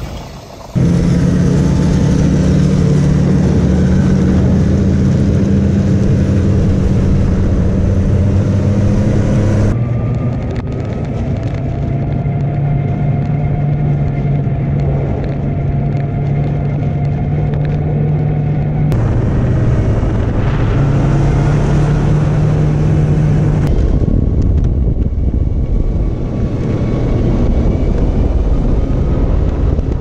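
Arctic Cat four-stroke snowmobile engine running steadily at travelling speed, with a constant rush of track and wind noise. The sound jumps abruptly a few times where the footage cuts.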